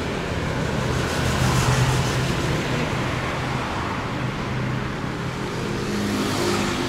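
Road traffic: vehicle engines running steadily on the street, a little louder about one and a half seconds in.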